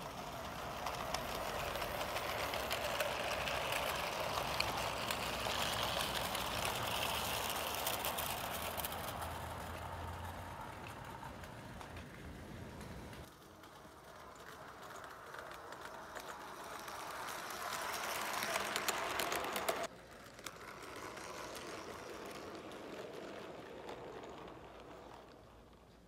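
O gauge model train running along the garden track: a steady rattling whirr of wheels and motor that swells as it passes close and then fades. It breaks off abruptly twice, about halfway through and again about three-quarters of the way through, and picks up at a different level each time.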